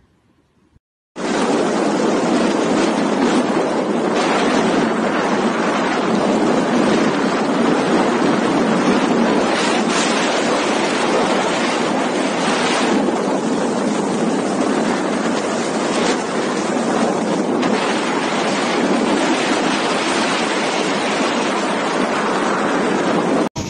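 Floodwater rushing through the open sluice gates of a dam or barrage: a loud, steady noise of churning water that starts suddenly about a second in and cuts off just before the end.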